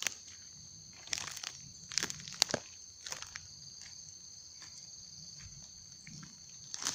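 Footsteps crunching and rustling through dry leaves and undergrowth, with sharp crackles about one, two and two and a half seconds in and again near the end. Under them, insects drone in a steady high-pitched tone.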